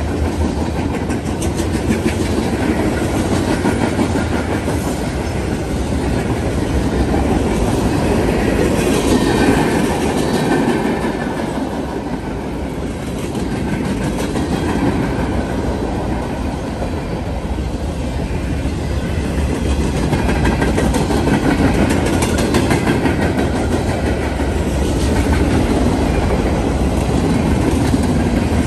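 Norfolk Southern freight train's cars rolling past at speed: a steady rumble of wheels on rail, with a continual run of clicks from the wheels passing over rail joints, swelling and easing slightly as the cars go by.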